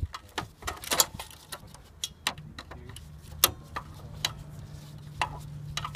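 Irregular sharp metallic clicks and clinks of a hand tool working small bolts loose from a CRT television's frame, over a low steady hum.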